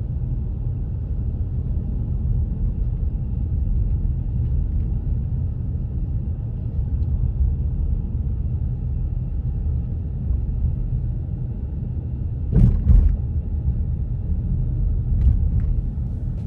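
Road and engine noise inside a moving car's cabin: a steady low rumble. A quick double thump comes about thirteen seconds in.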